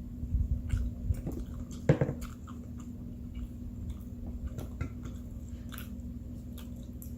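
A person chewing and biting into curry chicken: small, irregular wet clicks and mouth sounds, with one sharper, louder bite about two seconds in.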